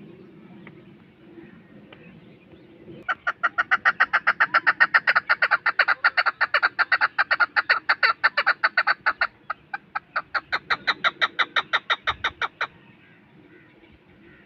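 Chukar partridge calling: a loud, fast run of clucking notes at about five a second, starting about three seconds in and lasting nearly ten seconds, with a brief break partway through.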